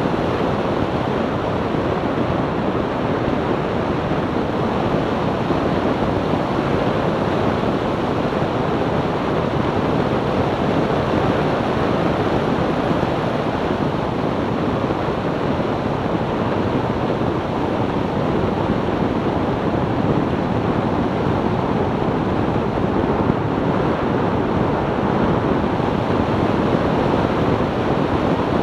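Steady wind rush on the microphone of a camera mounted outside a car travelling at cruising speed, mixed with tyre and road noise. No distinct engine note stands out.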